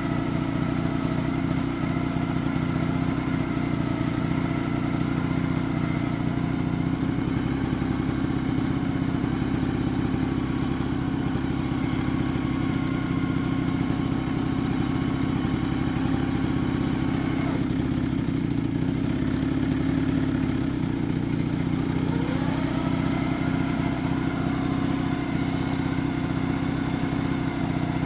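Vespa PX scooter's two-stroke single-cylinder engine running, held at a raised speed, dropping back at about two-thirds of the way through and picking up again a few seconds later. The owner hears a weird noise from it since fitting a new clutch.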